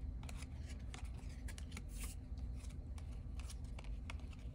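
Gridiron Fantasy Football collectible cards being handled and flipped through one at a time: a run of soft, irregular card-stock clicks and slides.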